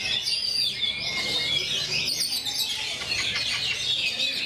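Oriental magpie-robins (kacer) singing in a song contest: a continuous, dense tangle of fast, overlapping whistled phrases.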